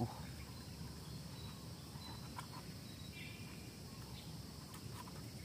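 Steady, high-pitched drone of crickets, with a few faint clicks near the middle and end.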